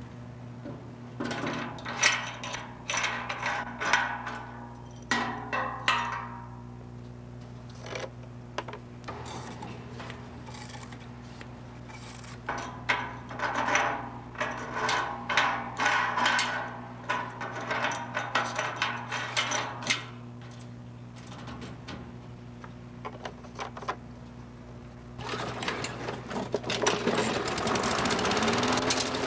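Bursts of rattling mechanical clatter, then, about 25 seconds in, the Troy-Bilt lawn mower's small engine starts and runs up to a steady run near the end.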